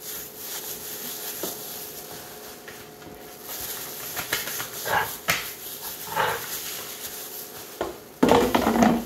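Gloved hands rubbing a dry spice rub into a rack of raw pork ribs, with soft rustling from the plastic gloves. Two short whining calls that bend in pitch come about midway. A louder, rough burst of sound lasts nearly a second near the end.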